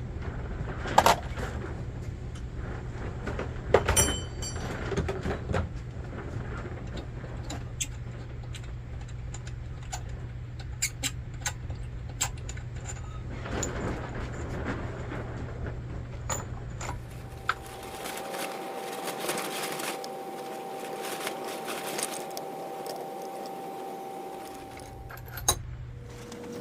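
Metal parts of an old Sears lantern being handled: scattered clinks and taps, with one ringing metallic clink about four seconds in, over a low hum. Later, a steady hiss with a faint whine for several seconds.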